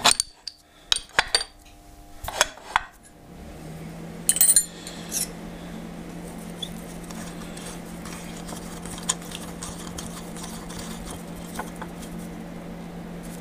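Metal clinks and taps as an Allen key works on the steel parts of a milling vise, with several sharp knocks in the first few seconds and a brighter clatter of clinks about four and a half seconds in. About three and a half seconds in, a steady low hum starts and carries on underneath.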